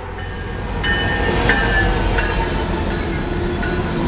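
Norfolk Southern diesel freight locomotive passing close by: a steady low engine rumble and wheels on the rails that grow louder as it draws alongside, with a few brief high-pitched tones over the top.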